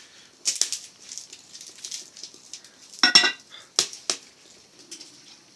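Metal pot lid knocking and clinking against a cooking pot: a few sharp metallic knocks, the loudest about three seconds in, ringing briefly.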